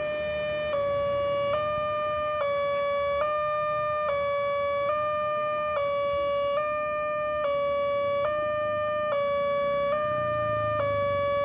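Automatic railway level crossing's electronic warning signal sounding, a steady tone that switches between two pitches a little more than once a second. It is the crossing's alarm that a train is approaching and the road is closed.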